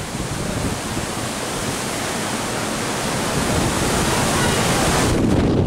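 Storm wind and rough, whitecapped sea heard from high on a ship: a steady, loud rushing hiss that loses some of its high edge about five seconds in.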